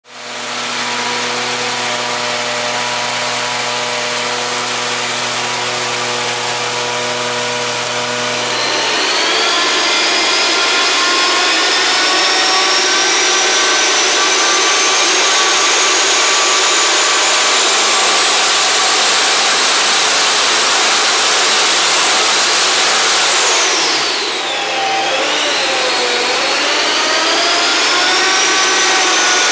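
Wagler DX500 Duramax-based V8 diesel, supercharged and twin-turbocharged, running on an engine dyno. It holds a steady speed for about eight seconds, then is pulled under load, with a high whine that rises slowly in pitch for some fifteen seconds. Near the end the whine drops sharply and the loudness dips briefly, then it climbs again.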